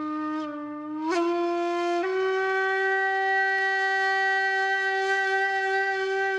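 A horn-like wind instrument blowing one long held note that slides up slightly about a second in, steps up again about two seconds in, and then holds steady.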